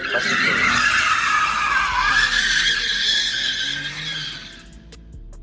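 Car tyres screeching as a car drifts: a loud, high squeal whose pitch wavers and dips about two seconds in, then fades out near the end.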